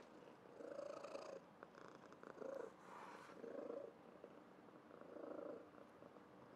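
Domestic cat purring softly, the purr swelling and easing in a slow rhythm with its breathing, about every one and a half seconds.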